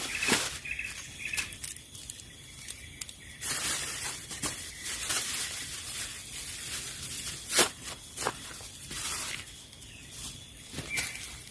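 Outdoor ambience: a high chirp repeating a few times a second in the first second or so, among scattered sharp clicks and knocks and a stretch of soft rustling noise in the middle. A single click about two-thirds of the way through is the loudest sound.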